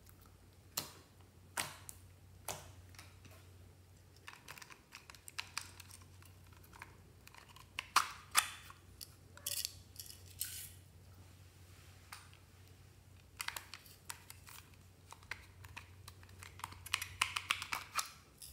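Irregular small clicks and crackles from hands handling glossy slime in a glass tray and tipping glitter out of small plastic containers, with a denser run of clicks near the end as a plastic container is opened. A faint low steady hum lies underneath.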